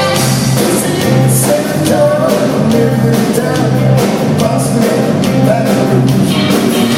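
Live rock band playing at a sound check: drums, bass and guitar under a singer's lead vocal.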